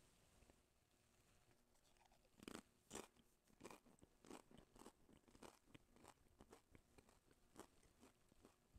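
A priest chewing the communion host (a thin unleavened wafer): faint, irregular crunches that begin about two and a half seconds in, over a hushed room.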